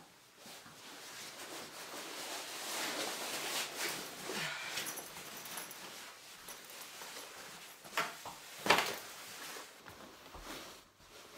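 Rustling of a winter coat and backpack as they are taken off, with two sharp knocks about eight and nine seconds in.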